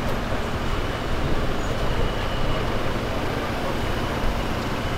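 Steady street noise from a vehicle engine running close by, with people's voices faint in the background.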